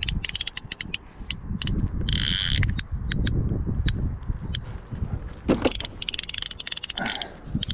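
Fly reel's click-and-pawl mechanism clicking in quick runs as the handle is turned to reel in a hooked fish, with a short, faster buzz about two seconds in.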